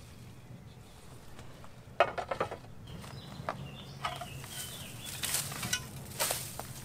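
Curved terracotta roof tiles clinking, knocking and scraping against each other as they are lifted and stacked, with a sharp knock about two seconds in and lighter clatter after it.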